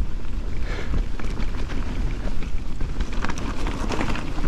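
Mountain bike riding fast down a dirt forest singletrack: a steady rumble of wind on the camera microphone, with tyre noise and short clattering knocks from the bike over the rough trail.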